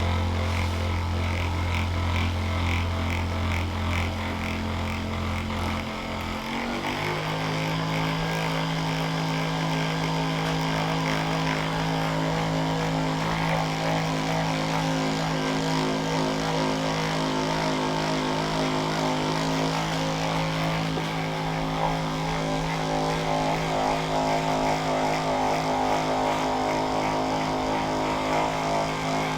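Electric massager's motor humming steadily, then stepping up to a higher speed about six to seven seconds in, its pitch jumping up and staying there.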